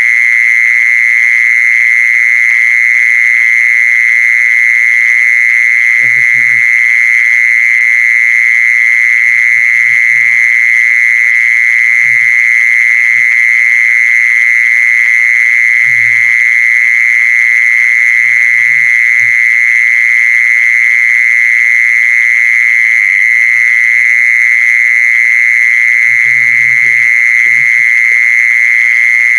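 Continuous, steady, high-pitched buzzing call at one unchanging pitch, played as a lure to call in the female kmol animal. A few faint low knocks come and go.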